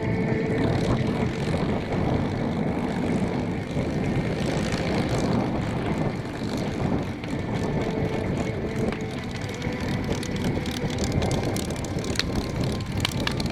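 A P-51D Mustang's Packard-built Merlin V12 running steadily at low power while taxiing, with a run of sharp clicks near the end.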